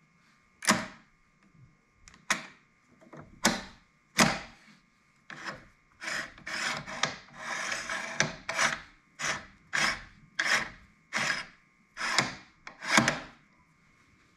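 Base clamps of a Tomcat MT-400 stringing machine being slid back and forth along the clamp base, giving a series of short scraping, rubbing strokes that run together for a few seconds in the middle. The clamp bottoms drag on the base rather than gliding smoothly, the grabbing that is the machine's known complaint.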